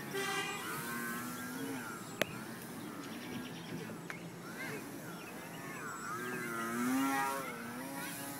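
Small RC airplane's motor and propeller whining, the pitch rising and falling as the throttle changes and the plane flies past, with a single sharp click a little over two seconds in.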